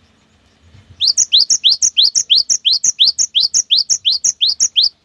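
Cinereous tit (gelatik batu) singing a fast, repeated two-note 'wucit' phrase, a rising note followed by a higher one, about four times a second. It starts about a second in and stops suddenly near the end.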